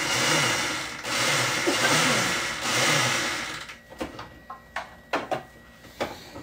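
Food processor pulsing baked cake into crumbs: the motor runs in two pulses with a short break about a second in, and stops about three and a half seconds in. A few sharp clicks and knocks follow as the processor is handled.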